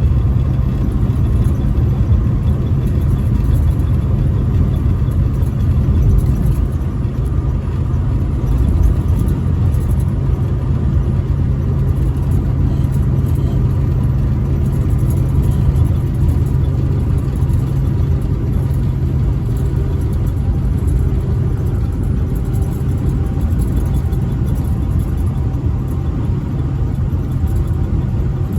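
Truck driving at a steady highway speed: an even, low rumble of engine and road noise.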